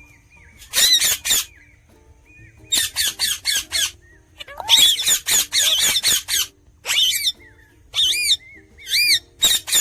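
Indian ringneck parrot giving loud, harsh screeching calls in rapid bursts of several calls each, with short pauses between the bursts.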